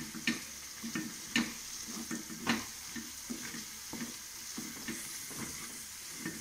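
Wooden spatula stirring and scraping a thick coconut-and-tomato masala around a metal kadai, in irregular strokes about once a second that grow softer in the second half, over a steady sizzle of the frying paste.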